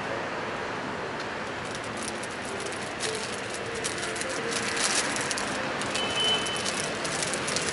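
Steady city street traffic noise, with crackling of a plastic wrapper being handled, loudest about five seconds in.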